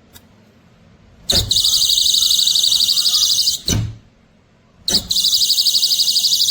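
Magnetic door/window alarm sounding its loud, high-pitched electronic siren, which pulses rapidly, twice: it goes off about a second in and cuts off after about two and a half seconds, then goes off again a second later. Each burst begins and ends with a sharp knock, as the alarm is set off by separating the sensor from its magnet and silenced by putting them back together.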